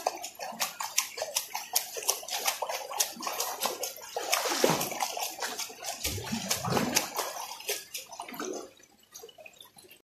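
A swimmer's kicking feet and paddling arms splashing in a shallow, flowing river: a run of irregular splashes and sloshing. It dies down sharply near the end.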